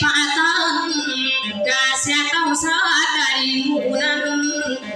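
A woman singing a dayunday song with acoustic guitar accompaniment, her voice wavering in pitch through long held notes.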